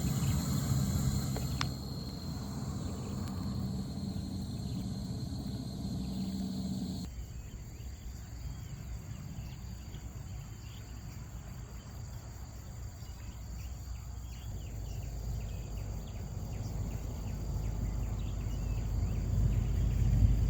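Chorus of night insects keeping up steady shrill trilling, with a low rumble underneath that grows louder near the end. The insect sound changes abruptly about seven seconds in.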